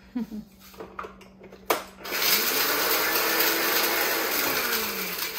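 Personal bullet-style blender dry-grinding a handful of toasted whole spices into a seasoning powder. A sharp click as the cup is pressed onto the base, then about three seconds of dense motor whirr whose pitch rises and then falls off as it stops.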